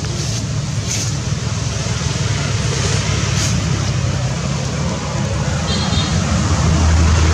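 Steady low rumble and hiss of motor traffic, the rumble growing stronger near the end.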